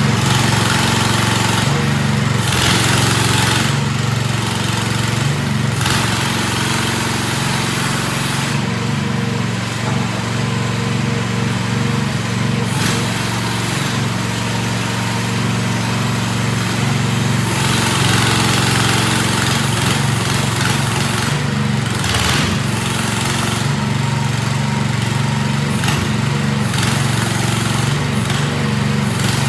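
Small 420cc single-cylinder gasoline engine of a mini excavator running steadily, with a hiss above it that swells and fades several times.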